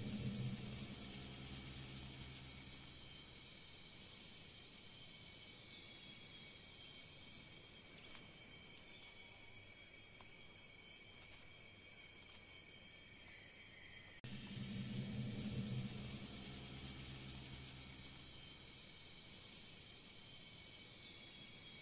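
Faint, steady high-pitched insect chorus, cricket-like, likely a looped nature ambience. Twice, at the start and again about fourteen seconds in, a low hum and a fast high ticking swell up for about three seconds.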